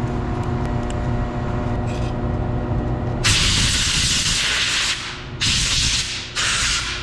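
Steady machine hum, then, a little over three seconds in, three bursts of compressed air hissing as dust is blown out of an opened power supply, the first the longest.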